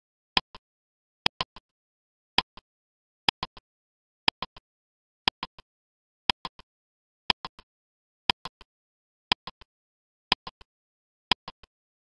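Countdown timer sound effect ticking about once a second. Each tick is a sharp click followed by one or two fainter clicks, with silence between ticks.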